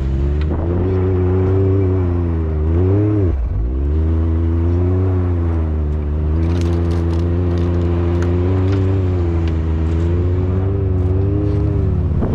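Side-by-side UTV engine running under load through snow, its pitch wavering up and down with throttle. The revs dip sharply and recover about three seconds in.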